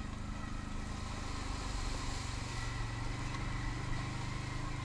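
Can-Am ATV engine running steadily as the quad rides along.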